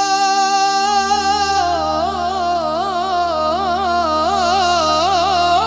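Qawwali singing: a single voice holds a long steady note, then about a second and a half in breaks into a wavering, ornamented melismatic run, landing on a new higher held note near the end, over a steady drone.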